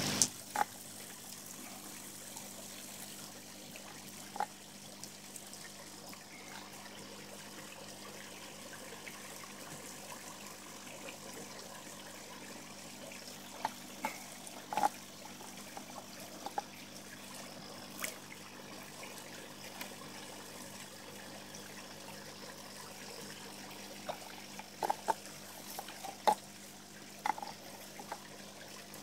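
Pond water trickling steadily, with scattered short splashes and plops at the surface, several close together about halfway through and again near the end.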